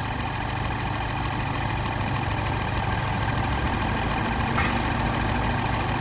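2012 Mini Cooper S turbocharged four-cylinder engine idling with the AC compressor running. Partway through, the electric condenser cooling fan kicks in and adds a steady hum; it switches on to pull the high-side pressure and temperature back down.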